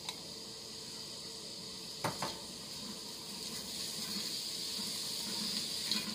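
Chopped onion starting to sizzle in hot olive oil in a large stainless steel pot, the hiss slowly building as the onion begins to sauté. A spatula or glass bowl knocks against the pot once at the start and twice about two seconds in.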